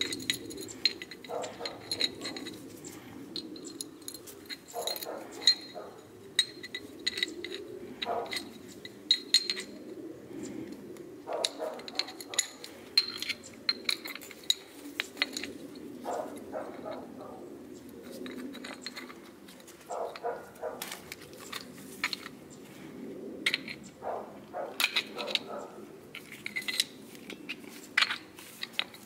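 Light metallic clicks and clinks as the return springs are stretched and hooked onto a pair of Honda ATC70 drum brake shoes, spring and shoe knocking together, some strikes leaving a short high ring.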